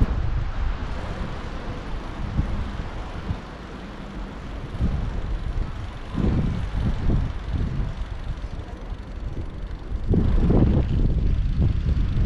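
Wind buffeting a GoPro's microphone while cycling, an uneven low rumble that eases in the middle and swells again about ten seconds in.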